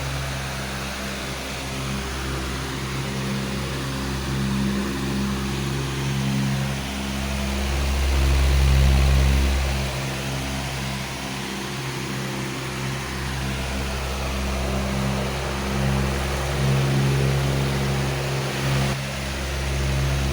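A powerful electric fan running steadily: an even rush of air with a low motor hum that swells and fades every few seconds.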